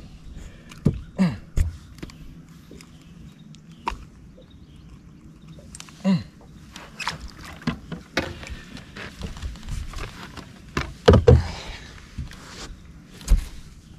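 Scattered knocks, clicks and rattles of a small bass being unhooked and handled on a bass boat's deck, over a faint steady low hum. The loudest burst comes about three seconds from the end.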